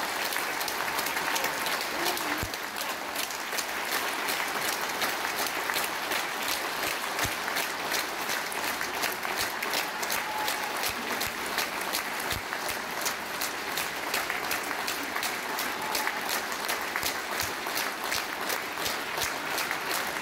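Audience applauding steadily, a dense clatter of many hands clapping.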